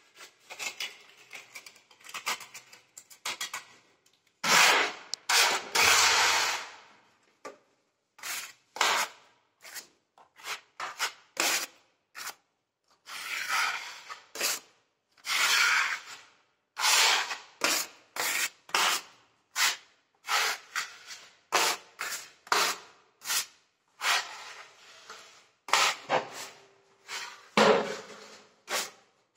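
Sandpaper rubbed by hand over a wall, in short irregular scratchy strokes about one or two a second, with one longer stroke about five seconds in. The wall is being sanded smooth to prepare it for repainting.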